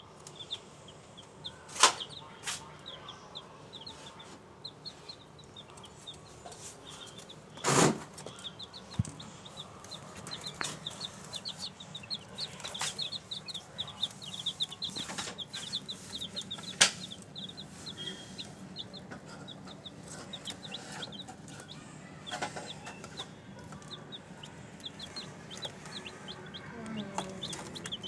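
A brood of week-old chicks peeping continuously, many short high peeps overlapping. A few sharp knocks stand out as the loudest sounds, about 2 s in, about 8 s in and about 17 s in.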